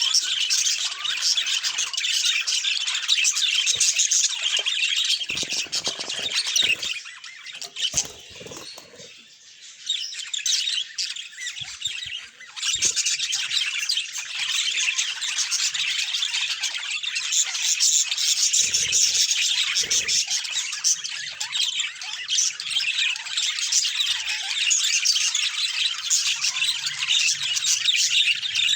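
Budgerigars chirping and chattering continuously in a rapid, warbling stream of high squawks and tweets, easing off for a few seconds about a third of the way in. A few soft low thuds come under the chatter.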